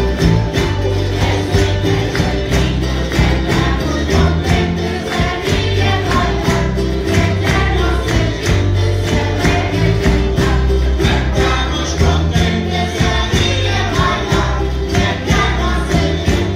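Madeiran folk group singing in chorus over strummed acoustic guitars and small four-string guitars, keeping a steady, even strumming beat.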